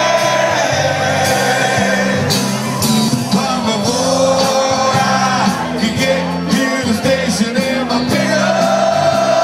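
Live rock band playing: a sung vocal holds long notes over steady bass and drums with frequent cymbal hits.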